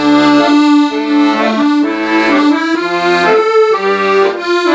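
Solo accordion playing the first phrase of a trot song's introduction: a melody of held notes over lower bass notes.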